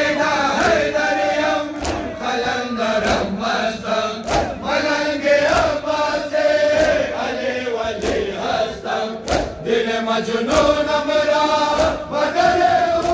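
A large group of men chanting a Muharram noha lament in unison, with the sharp slaps of hands striking bare chests (matam) landing in a steady rhythm, about one beat every three quarters of a second.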